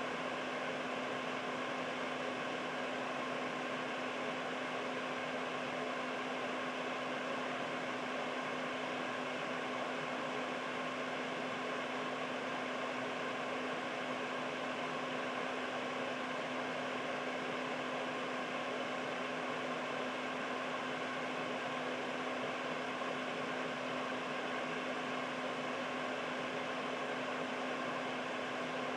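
Air purifier fan running steadily: an even rush of moving air with a constant low hum.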